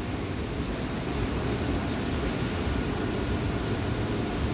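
Steady drone of a New York City subway car standing at the platform with its doors open, its ventilation and on-board equipment running, with a low rumble under a fainter hiss.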